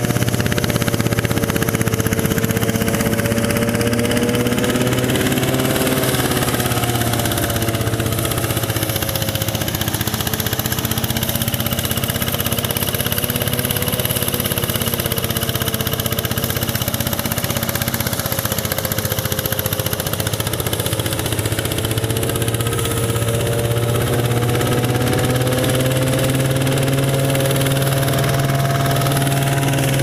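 Portable rice thresher driven by a small engine, running steadily with a constant low hum and a pitched whine that slowly sags and recovers over the threshing noise of the drum.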